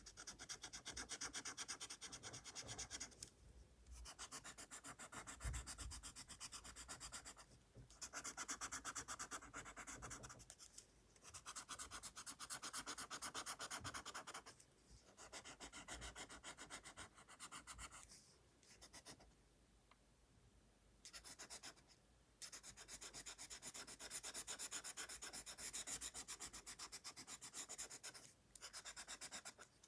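Coloured pencil shading on sketchbook paper: quick back-and-forth strokes scratching and rubbing in spells of a few seconds, with short pauses between them.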